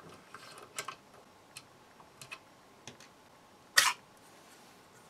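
Small clicks and light scrapes of an aluminium amplifier case and its circuit board being handled as the board is slid out of the case, with one louder click about four seconds in.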